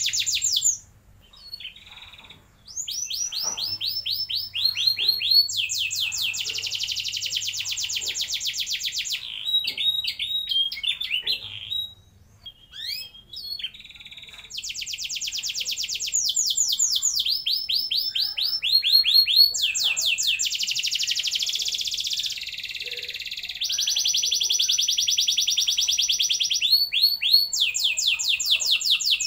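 Domestic canary singing long rolling trills: runs of rapidly repeated high notes, some slower and some fast and buzzy, each phrase held a second or two before switching. There are short pauses about a second in and around twelve seconds in.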